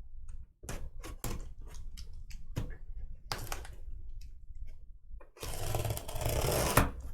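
Handling noise from card boxes and their packaging: a string of clicks and taps, then, about five seconds in, a loud rough scraping or rustling that lasts under two seconds.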